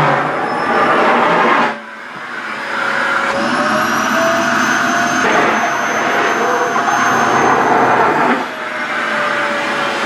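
SHARP EC-KP7F-A vacuum cleaner running with its nozzle sucking at skirt fabric: a steady motor whine over a rush of air. The rush drops sharply about two seconds in and builds back up as the whine climbs a little in pitch, then dips again near the end.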